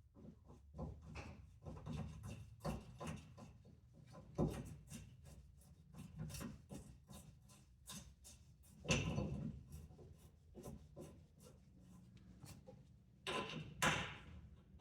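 Irregular clicks, scrapes and rubbing of hand tools and metal parts being worked during a suspension install, with a few louder knocks: one about four and a half seconds in, one around nine seconds, and a pair near the end.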